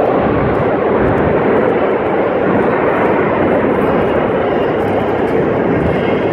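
Formation of Pilatus PC-7 turboprop trainers flying past, their engines and propellers making a steady drone.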